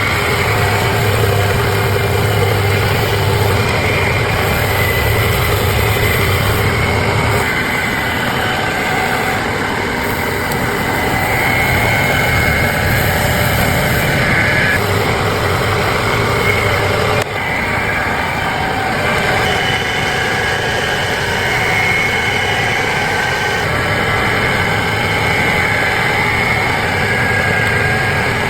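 Power tools running steadily as they work wood, with a brief dip in level about 17 seconds in.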